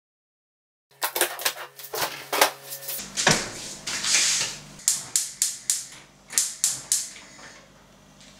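After about a second of dead silence, a run of sharp clicks and taps, about two or three a second: a metal spoon knocking pig fat into a steel pot, then a gas cooker being lit, the rapid clicking near the middle typical of its spark igniter.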